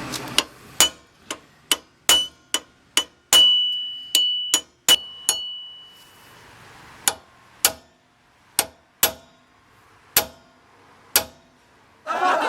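Hammer striking steel about eighteen times at an uneven pace, quicker in the first half and slower later. One blow leaves a clear metallic ring that fades over a couple of seconds. These are blows to free a seized wheel hub.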